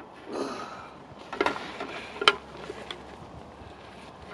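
Carp-weighing gear being handled: a brief rustling swish, then a few sharp clicks and knocks, the loudest a little over two seconds in.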